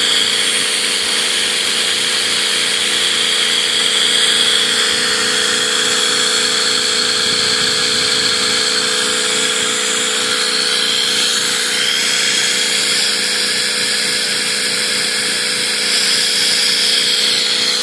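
Homemade five-rotor micro Tesla turbine spinning at speed on compressed air, giving a steady high whine over the hiss of the air rushing through it.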